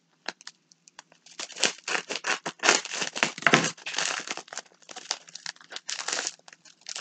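Plastic bubble mailer being cut open with scissors and handled, its plastic film crinkling in quick, irregular rustles that thicken about a second in.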